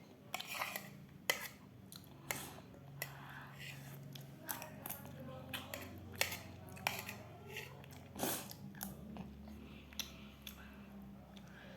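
A person chewing a mouthful of food, with irregular short mouth clicks.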